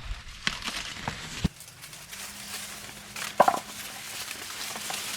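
Dry corn plants crackling and snapping as corn is picked by hand: several sharp snaps in the first second and a half, then a louder one about three and a half seconds in.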